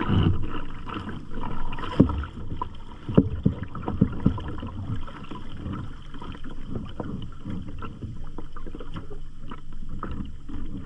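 Water splashing and sloshing around a skin-on-frame sea kayak under paddle, with irregular sharp splashes and knocks in the first half that give way to calmer lapping.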